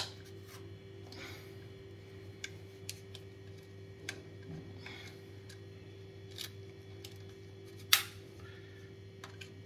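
Small clicks and scrapes of a screwdriver turning the terminal screws of a plastic wall socket, and the wires being worked free, scattered every second or so. There is one sharper click about eight seconds in, over a steady low hum.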